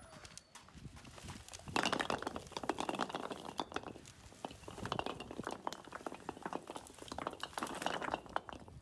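Dried coconuts tumbling out of a tipped wicker basket onto stone paving: a rapid clatter of many knocks as they hit and roll. It starts suddenly about two seconds in and goes on until just before the end, with a second loud surge near the end as the rest are emptied out.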